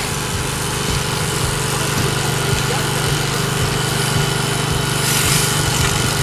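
Electric sheep-shearing machine running with a steady hum as the handpiece cuts through a ram's fleece.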